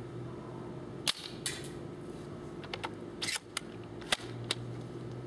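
AGM MP002 L96 spring-powered airsoft sniper rifle being shot and its bolt worked: a handful of sharp snaps and clicks, the loudest about a second in and again about four seconds in.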